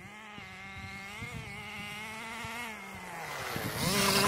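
1/10-scale nitro RC buggy's small two-stroke glow engine buzzing, its pitch rising and falling with the throttle. It gets louder near the end as the buggy comes close.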